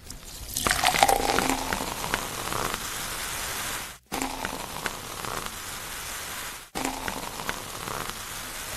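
Carbonated drink poured from a glass bottle into a wine glass, a steady splashing fizz as it foams up; the pour sound stops for an instant twice.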